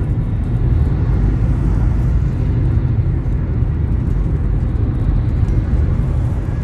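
Steady low rumble of a car in motion, road and engine noise heard from inside the vehicle.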